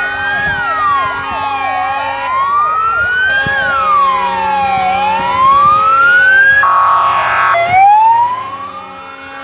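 Sirens of a convoy of fire engines and a police car: a slow wail rising and falling about every three seconds, with a faster yelping siren over it in the first few seconds. A horn sounds for about a second roughly seven seconds in.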